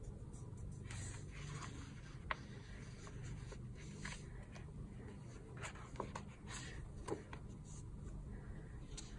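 Light scratching and rustling of paper and sticker sheets being handled, with a few soft sharp clicks.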